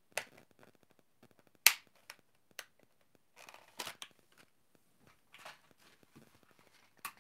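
Clear plastic packaging being handled: scattered small clicks and crinkles, with one sharp snap about a second and a half in.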